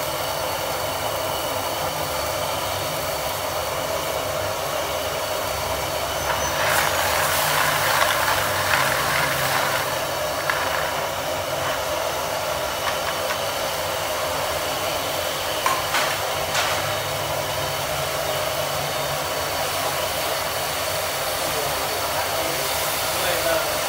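Gas burner running steadily under a pan of clams boiling in broth, with a steady hiss and bubbling. A few brief clicks are heard now and then.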